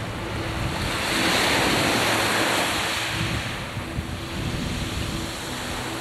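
Strong wind buffeting the microphone over a choppy sea, with the rush of waves; a gust swells about a second in and eases again after about three and a half seconds.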